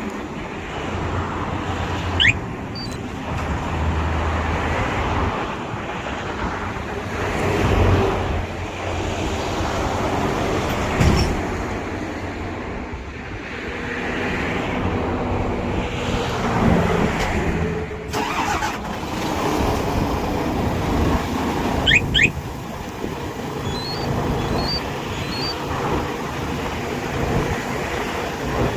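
Daewoo Prima truck's diesel engine running steadily, with a few short high rising chirps over it: one about two seconds in, one near the end, and a quick run of small beeps shortly before that.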